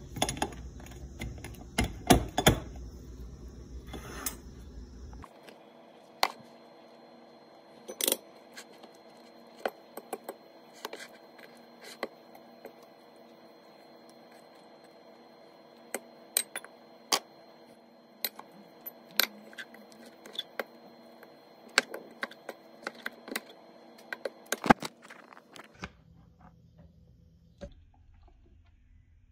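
Kitchen utensils clicking and tapping irregularly: a metal fork against a ceramic plate as roasted eggplant flesh is scraped from its charred skin, and plastic dishes being handled. A steady low hum runs under the first five seconds, then stops.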